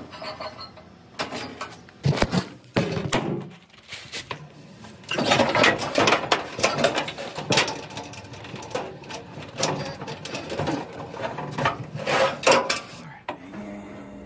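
Irregular metal knocks, clanks and scraping from handling an electric dryer's drum and sheet-metal cabinet, with a busier stretch of rattling about five to eight seconds in and another near the end.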